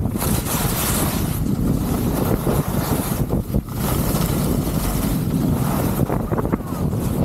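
Wind buffeting the camera's microphone at skiing speed, a loud low rumble, with the hiss of skis carving across groomed snow swelling and fading with the turns.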